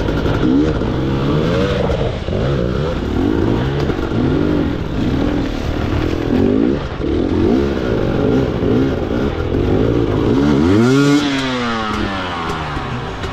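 Enduro dirt bike engine revved up and back again and again, its pitch rising and falling about once a second, then one longer, higher rev about eleven seconds in that drops away near the end.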